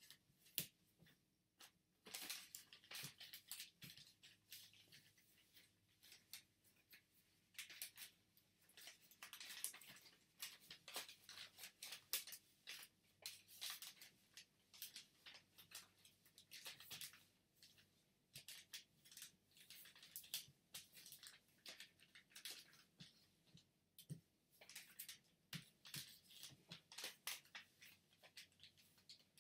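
Origami paper rustling and crinkling as it is folded and creased by hand, with the scrape of a flat folding tool pressing the folds: an irregular run of soft crackles and swishes with short pauses.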